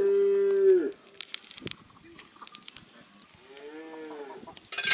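Cattle mooing: one long, steady call that ends about a second in, then a shorter call that rises and falls in pitch near the end. Faint crackling from the wood fire comes between the calls.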